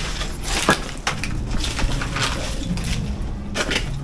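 Irregular crunching and clattering: a series of scrapes and knocks, like something moving over loose debris. The strongest comes just under a second in, and another near the end.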